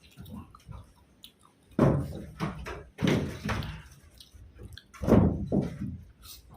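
Close-miked eating sounds: a person chewing and smacking food, with three louder mouthfuls about two, three and five seconds in.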